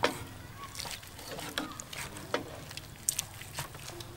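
Kitchen knife cutting through boiled beef on a wooden chopping board, the blade knocking on the board in a series of irregular strokes.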